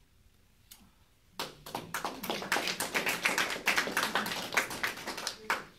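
Small audience applauding with hand claps after a poem ends, starting about a second and a half in and stopping shortly before the end.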